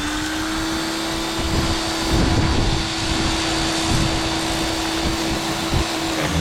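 Greenworks 60V 1800-PSI pressure washer running: the electric motor and pump spin up with a steady whine over the hiss of the high-pressure spray being used to wash a wheel. The motor winds down just before the end.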